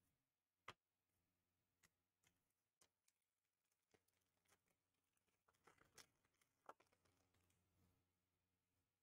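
Near silence with faint, scattered clicks and taps of trading cards and packs being handled on a table.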